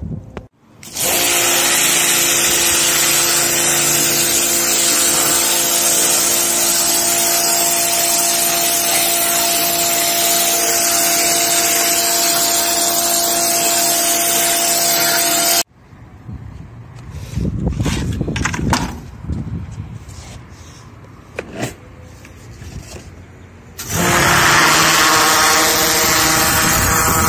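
Pressure washer running with a steady motor hum and the hiss of its jet spraying dirt off an air cooler's louvered panel. It starts about a second in, cuts off suddenly about halfway, and after a quieter, uneven stretch starts up again near the end.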